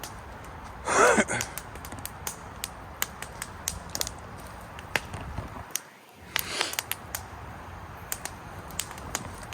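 Fire crackling as a flag burns, with frequent irregular sharp pops over a low steady hiss. A brief louder sound with a wavering pitch comes about a second in.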